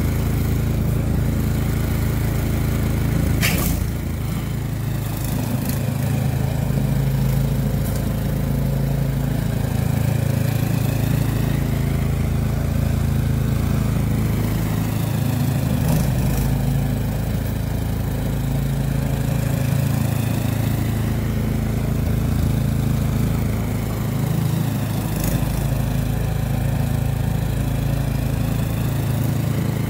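Toro SnowMaster 824 QXE snowblower engine running steadily while the machine stands still. Its low hum swells and eases about every four to five seconds, with one sharp click a few seconds in.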